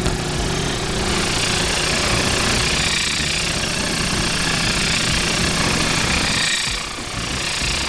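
Motorized wire wheel buffing CV joint bolts clean: a steady motor with a rough, rattling chatter as the bolts are worked against it. It eases off briefly near the end, then picks up again.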